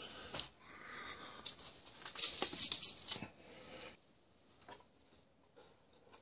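Stainless steel pot lid wrapped in aluminium foil being handled and set back on the pot: foil rustling and metal scraping and clinking for about three seconds, then a few faint clicks.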